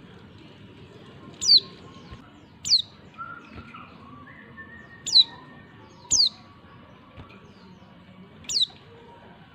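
Female white-eye (pleci) giving five short, sharply falling high-pitched call notes at irregular intervals. These are the calls used as a lure to get male white-eyes to answer and sing.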